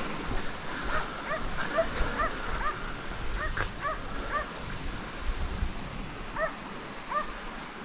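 Hunting dog barking and yelping in quick bursts of short, high, repeated yelps, with a short pause midway.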